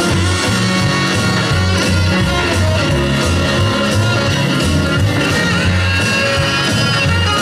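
Loud upbeat dance music with guitar and a steady bass beat.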